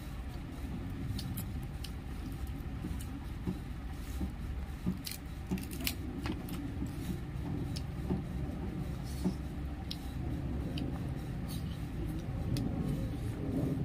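Scattered small clicks and ticks of cooked goat-head bones being picked apart by hand over a plastic plate, a few a second, over a steady low rumble.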